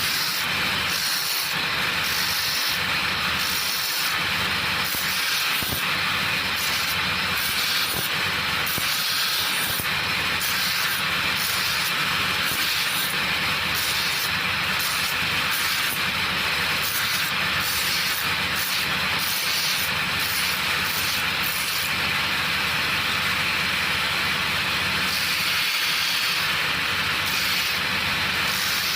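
A workshop machine driven by an electric motor runs steadily with a low hum, while a high hiss cuts in and out every second or so.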